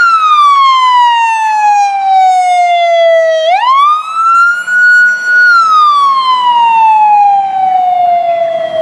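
Fire department paramedic rescue ambulance's siren wailing on an emergency response. Its pitch falls slowly, sweeps quickly back up about three and a half seconds in, holds high for about two seconds, then slides slowly down again.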